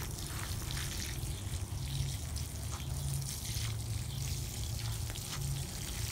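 Water trickling and splashing from the spout of a plastic watering can onto soil and seedlings, a soft steady pour, over a low steady rumble.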